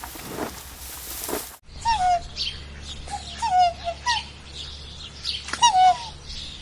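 Birds calling: repeated short calls that slide downward, mixed with higher chirps, starting after a sudden cut about a second and a half in. Before the cut, a hissy background with soft regular knocks.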